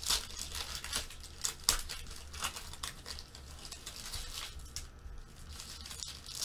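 Foil trading-card pack wrappers crinkling and tearing as packs are handled and ripped open by hand: a run of irregular sharp crackles.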